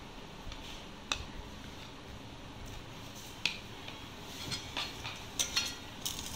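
A spoon clicking and clinking lightly against kitchenware a few times, single taps early on and a quick run of them near the end, as the rose milk drink is assembled.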